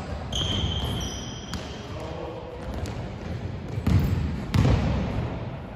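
Basketball play on a hardwood gym floor in a large echoing hall: a high squeak lasting about a second near the start, and two loud ball thumps about four seconds in.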